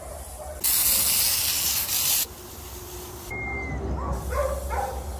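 A hose spraying water, a loud steady hiss that starts abruptly about half a second in and stops suddenly about a second and a half later. Brief dog barks follow near the end.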